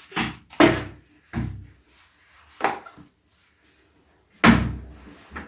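A series of about six sudden knocks or thuds at irregular spacing, the loudest about four and a half seconds in, with a quiet pause before it.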